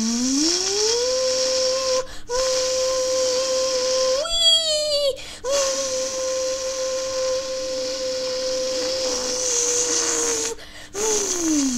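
A child's voice imitating a racing car engine in long held 'vroom' tones, rising in pitch at the start, with a louder, higher burst about four seconds in, then a long steady tone that slowly sinks. The tones break off briefly for breath three times.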